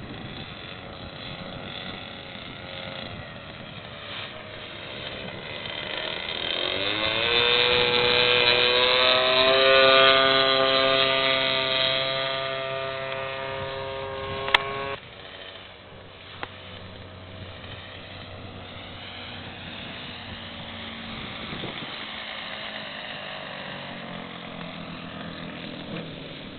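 O.S. 1.60 glow engine of a quarter-scale Extra 300 radio-control plane in flight. Its note rises in pitch and grows loud about a quarter of the way in, holds, then drops suddenly about halfway to a fainter, steady drone.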